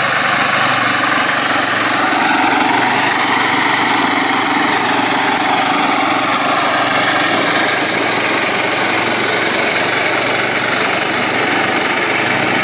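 VARI F-580BIS Hurricane MaX walk-behind flail mulcher running steadily under load, its engine and flail rotor cutting through tall, dense grass.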